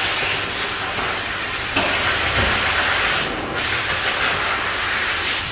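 Steady hiss of water spraying from a shower hose, splashing onto a dog's coat and a stainless steel bathing tub.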